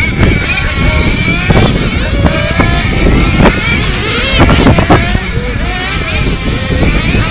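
Several radio-controlled model cars racing, their small motors whining up and down in pitch again and again as they speed up and slow down, over a steady crowd rumble.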